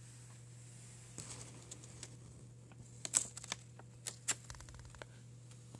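Faint handling noise from a handheld camera: scattered light clicks and short rubs, the loudest cluster about three seconds in and two more just after four seconds, over a steady low hum.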